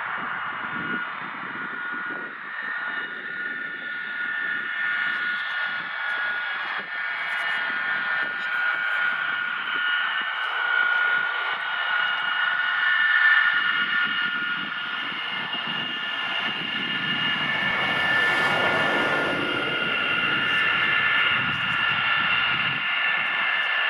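Avro Vulcan B.2's Bristol Siddeley Olympus turbojet engines running steadily on the ground during an engine run: a steady whine of several held tones over a rumbling roar.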